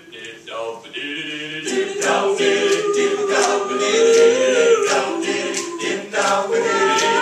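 All-male a cappella group singing a doo-wop backing in close harmony. A few voices open it, and the full chord comes in a little under two seconds in, with short percussive clicks two or three times a second.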